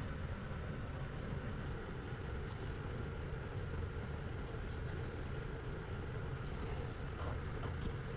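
Steady low background rumble with a few faint soft rustles.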